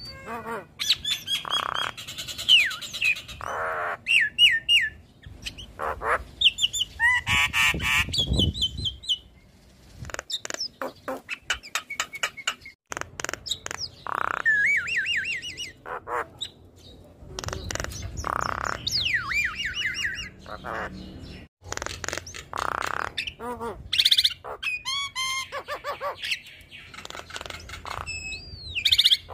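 Javan myna singing a varied chattering song: gliding whistles that rise and fall, harsh squawks and rapid clicks, in phrases broken by short pauses.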